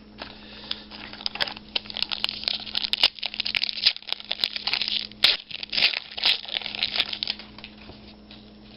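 Wrapper of a trading card pack being torn open and crinkled, a run of crackling rustles that dies down near the end.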